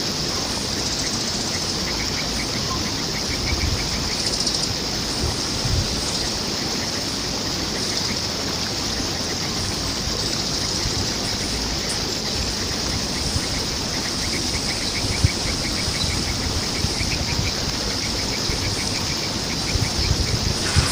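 Steady rush of flowing water, with several runs of rapid, high chirping a few seconds long from a bird, and a sharp tap once around the middle.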